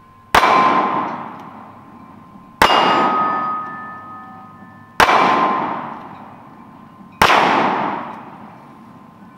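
Four shots from an FN Five-seveN pistol firing 5.7x28mm incendiary rounds, about two and a half seconds apart. Each round strikes a hanging steel plate, which clangs and rings out for about two seconds.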